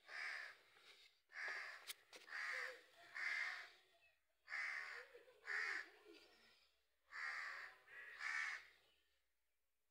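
Crow cawing repeatedly, about nine harsh caws in groups of two or three, stopping about nine seconds in.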